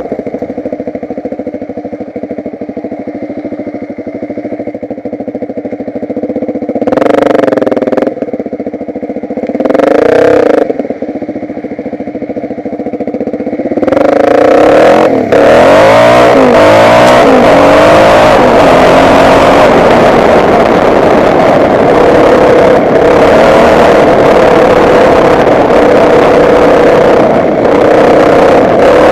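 Off-road motorcycle engine running at low revs, revved up briefly twice, then running loud and hard from about halfway through, its pitch rising and falling with the throttle.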